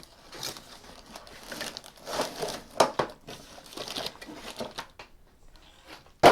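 Plastic packaging crinkling and rustling in irregular bursts as the contents of an RC car box are handled and unpacked, with a sharp knock just before the end.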